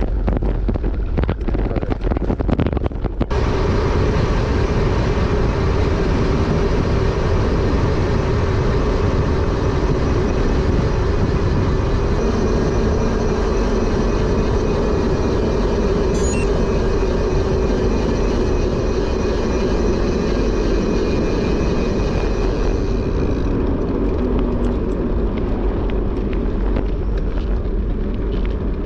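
Wind rushing over the microphone and tyre noise of a bicycle being ridden: a loud, steady rush with a steady hum. It turns hissier a few seconds in and eases back about three-quarters of the way through.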